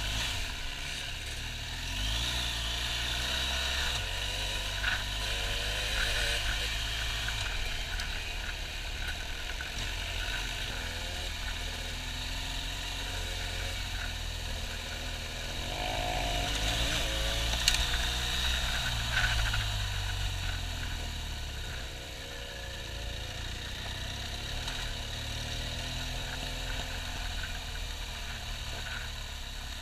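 BMW R1200GS's boxer-twin engine running on a gravel track under changing throttle, its pitch rising and falling through the ride, over wind and road noise, with a few sharp knocks.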